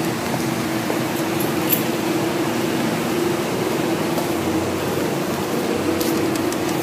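Steady rushing air noise with a constant low hum running under it, of the kind an air-conditioning or ventilation unit makes.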